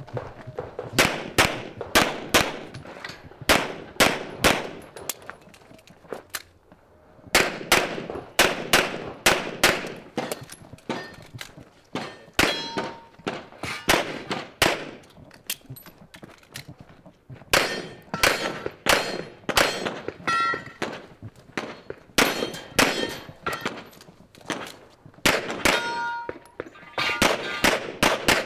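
Pistol shots fired in rapid strings: three long volleys with brief pauses between them. Steel targets ring out with a short metallic ding after some of the hits.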